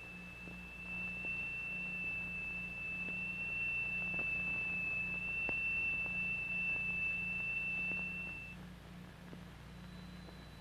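Steady high-pitched tone of a crystal exciter driving a triangular vibrating plate, which shapes the sand on it into a sonorous (Chladni) figure. The tone stops about eight and a half seconds in, and a fainter, higher tone begins near the end.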